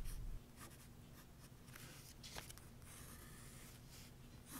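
Graphite of a mechanical pencil scratching on paper while sketching: faint, short strokes, about half a dozen with short pauses between, one longer stroke midway.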